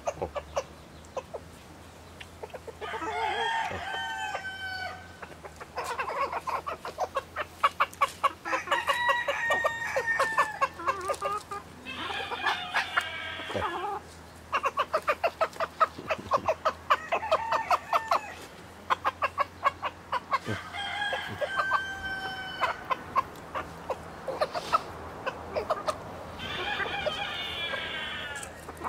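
Roosters crowing about five times, one long crow after another, over a steady background of hens clucking.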